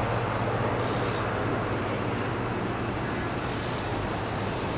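Diesel train moving away down the track. Its engine makes a steady low drone over an even wash of running noise.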